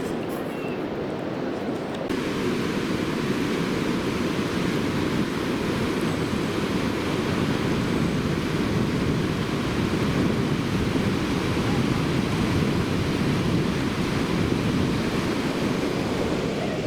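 Steady rush of surf breaking on a sandy beach, mixed with wind on the microphone. It gets a little louder about two seconds in.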